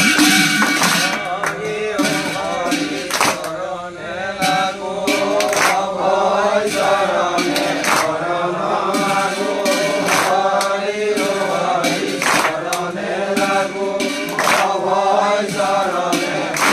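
Assamese nam-prasanga devotional singing: voices chanting a melody together, with sharp percussion strikes about once a second.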